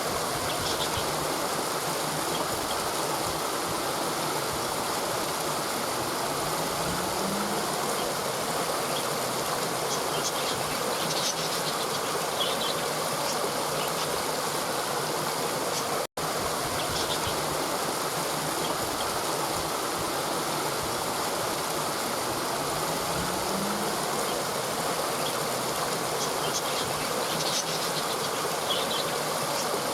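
Steady rush of water flowing over rocks in a mountain river, with faint high chirps now and then. The sound cuts out for an instant about halfway through, and the same stretch of water sound repeats.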